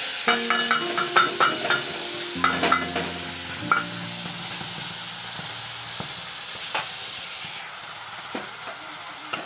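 Spice paste of onion, garlic, chilli and turmeric sizzling steadily in hot oil in a wok. In the first few seconds there are repeated sharp clicks and scrapes of a spatula against the pan as the paste is stirred, and only a few scattered clicks after that.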